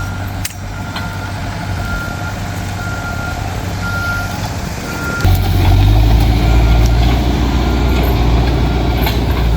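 A heavy machine's reversing alarm beeping about once a second over its engine, which grows louder about five seconds in as the machine works.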